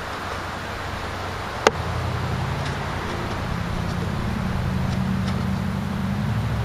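A single sharp click about a second and a half in, followed by a low, steady motor-like hum over a background hiss; the hum grows slightly louder.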